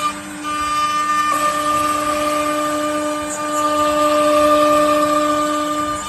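CNC router spindle running with a steady high whine over a noisy hiss, dipping briefly just after the start.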